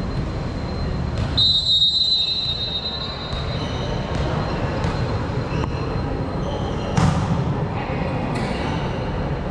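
Volleyball being played in a sports hall: a referee's whistle blows about a second and a half in, sneakers squeak on the court, and the ball is struck sharply near the end. A steady rumble of the hall runs underneath.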